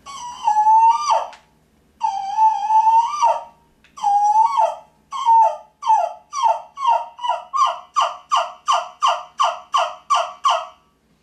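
Turkey yelper (a suction call) playing hen turkey calls. Three drawn-out notes each break downward in pitch at the end, the rollover of a yelp. Then comes a quickening run of about fourteen short yelps, roughly two to three a second.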